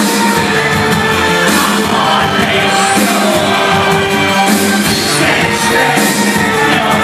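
Industrial band playing live, loud and steady through a concert PA and recorded from within the crowd, with sung and shouted vocals over the music.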